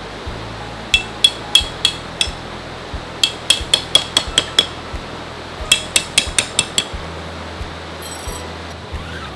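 Hammer driving metal tent stakes into the ground: three quick runs of blows, each strike ringing with a sharp metallic clink.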